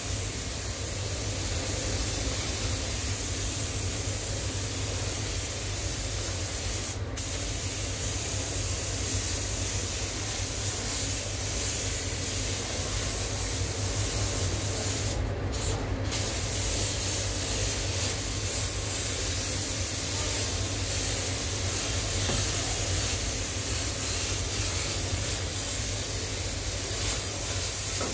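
Anest Iwata LPH-80 gravity-feed spray gun hissing steadily as it lays clear coat over base coat, with a brief break about seven seconds in and two more around sixteen seconds. A steady low hum runs underneath.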